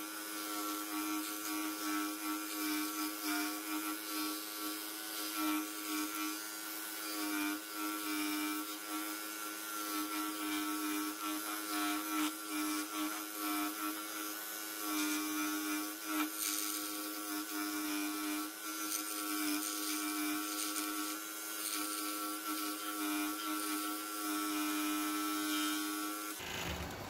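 Pégas 21-inch scroll saw running with a steady hum as its fine fretsaw blade cuts through a thin wooden tree slice. Near the end the saw stops suddenly.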